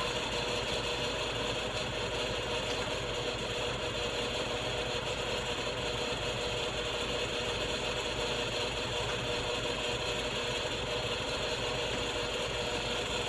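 Kitchen exhaust fan running steadily: an even rushing noise with a faint steady hum.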